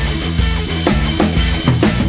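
Background music: a song with a drum-kit beat over bass notes.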